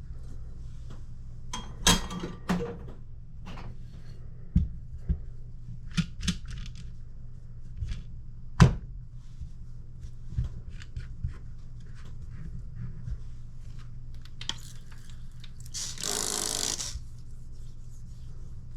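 Scattered clicks and knocks of knives and tools being handled and set down on a hard work surface, with a short rasping noise about three quarters of the way through, over a steady low hum.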